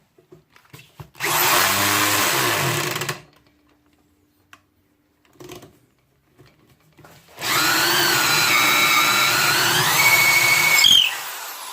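Ryobi corded electric drill driving a 3/4-inch auger bit into pine, running in two bursts of about two and three and a half seconds. Its pitch dips and recovers during the second run as the bit loads up.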